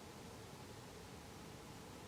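Faint steady hiss with a low hum: background noise with no distinct sound.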